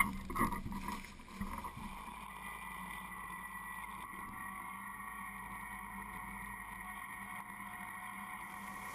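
Riding lawnmower engine running steadily, a constant even hum.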